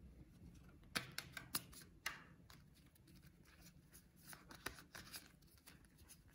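A small pile of playing cards being shuffled in the hands: faint, quick card flicks and slaps, with a cluster about a second in and scattered ones after.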